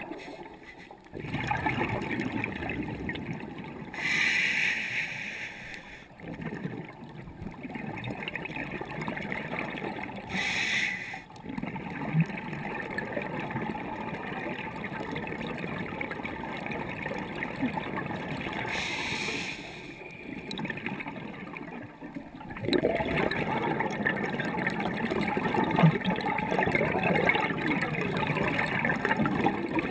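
Underwater noise of a scuba dive picked up through the camera's housing: a steady low rush of water, broken by short bursts of bubbling from a diver's exhalations about every six to eight seconds. It grows louder and busier in the last quarter.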